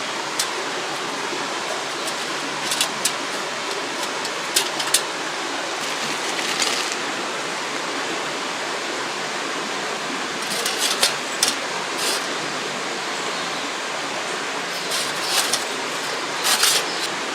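A river rushing steadily over rocks, with scattered small clicks and knocks of nearby handling.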